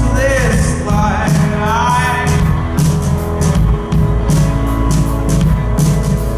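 Live rock band playing with electric guitars, bass and a steady drum beat, a voice singing over it for the first couple of seconds before the band carries on instrumentally.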